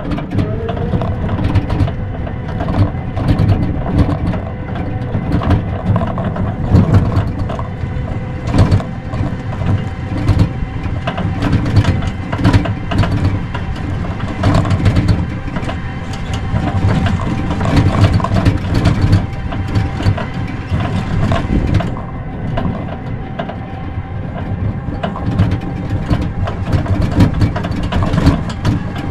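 Kuba GL 1800 MAX tricycle climbing a rutted dirt track in low gear: its motor runs with a steady drone and a thin whine, while the trike's body rattles and knocks over the bumps.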